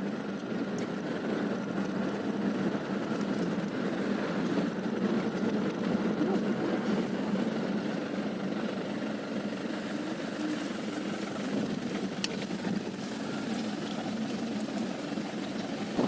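A motor vehicle's engine running steadily with a continuous rumble of road noise.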